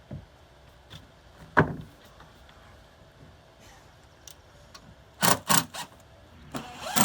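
Sharp knocks on composite decking boards being fitted: one loud knock about a second and a half in, then a quick run of three about five seconds in and a few more near the end.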